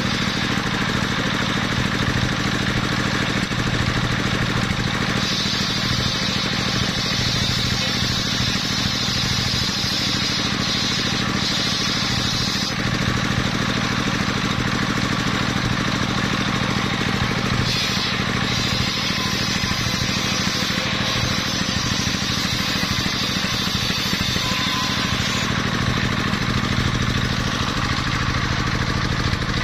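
Engine-driven circular saw of a mobile sawmill running steadily, cutting coconut-palm wood. A brighter, higher sawing sound comes in twice, from about five seconds to twelve and from about eighteen to twenty-five, as the blade goes through the wood.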